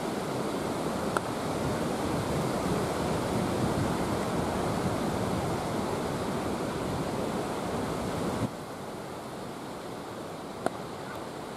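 Wind buffeting the camera microphone, a steady rushing noise that eases about two-thirds of the way through. Two sharp knocks stand out, one about a second in and one near the end: a cricket bat striking the ball.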